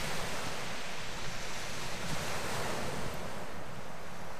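Sea surf breaking and washing over a shingle beach, a wave surging louder about halfway through, with a low rumble of wind on the microphone.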